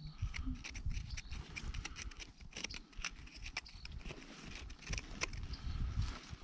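A small hand blade scraping and picking at loose sandy sediment, giving a string of irregular gritty clicks and scratches.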